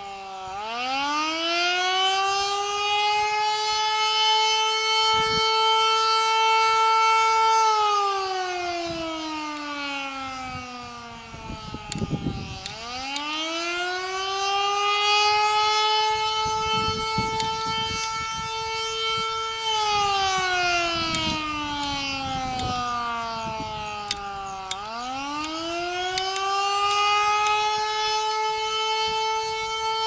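Canadian Federal Signal Model 2 civil defense siren sounding the Attack signal: a wail that rises over about two seconds, holds its pitch for about five, then falls for about four, over and over. A few knocks come about twelve seconds in, at the bottom of a fall.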